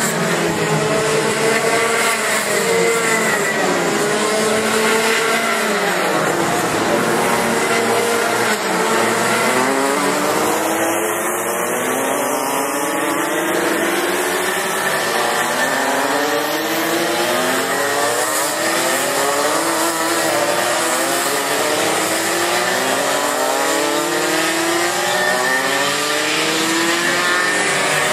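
Several racing kart engines running at once, their pitches climbing and falling over and over as the karts accelerate and lift off through the corners, overlapping one another.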